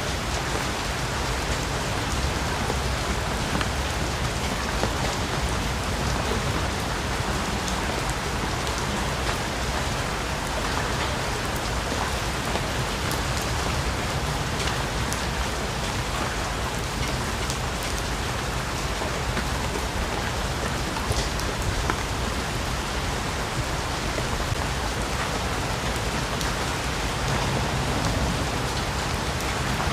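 Steady heavy rain falling on foliage, a dense even hiss with a low rumble beneath and scattered individual drops.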